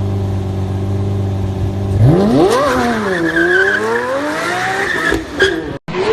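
Lamborghini engine idling steadily, then revving hard about two seconds in, dipping and climbing again, with tyres squealing over it. The sound cuts off abruptly near the end.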